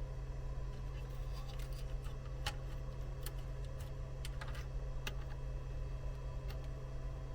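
A scattered run of light clicks and taps, like a circuit board and small tools being handled on a workbench, over a steady low hum.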